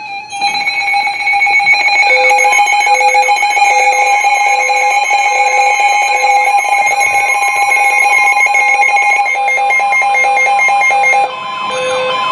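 Several NOAA weather alert radios sounding their alarms at once: overlapping steady and beeping electronic tones over a long steady alarm tone. Some alarms cut off about three quarters of the way in and the sound gets quieter. The alarm signals a newly issued warning, here a flash flood warning.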